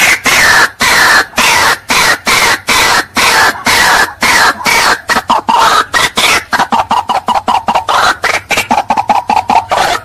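White-breasted waterhen calling: harsh croaking notes, each sliding down in pitch, about two a second, then quickening about two-thirds of the way in into a fast, even run of short notes.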